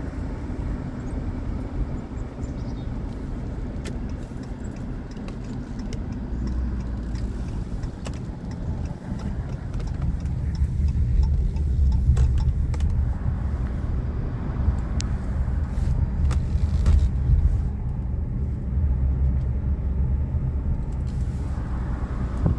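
Car driving along a road: a steady low rumble of engine and tyres that grows louder about halfway through, with a few light clicks.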